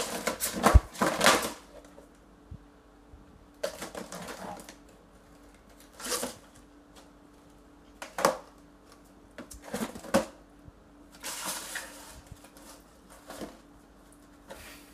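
A kitten at play: irregular bursts of scratching and rustling, one every second or two, the loudest cluster at the start.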